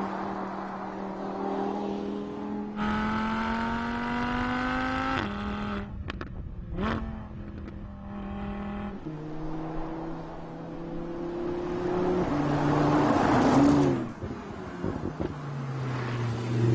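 Audi R8 Spyder's V10 engine accelerating through the gears. The pitch climbs for a couple of seconds, then drops suddenly at a gear change. A quick rev blip comes about seven seconds in, and near the end the engine builds to its loudest before cutting off abruptly.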